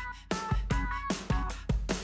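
Background music with a steady drum beat and short melody notes.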